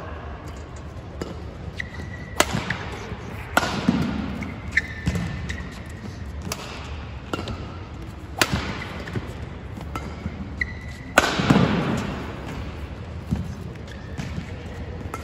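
Badminton rally: rackets strike the shuttlecock about five times, sharp cracks a second or two apart that echo in the large hall, with short squeaks of court shoes and footfalls between the shots.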